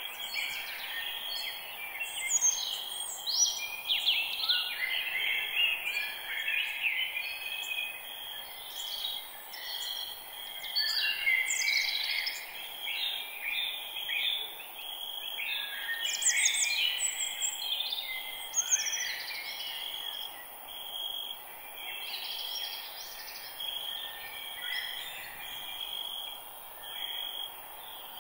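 Several birds singing and chirping at once, many overlapping short phrases, over a steady high-pitched drone and a faint background hiss.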